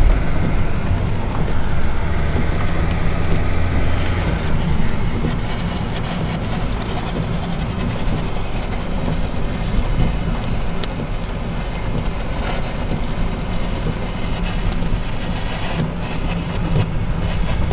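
Strong thunderstorm gust-front wind rushing and buffeting the microphone, a loud steady rumbling noise with a few faint clicks.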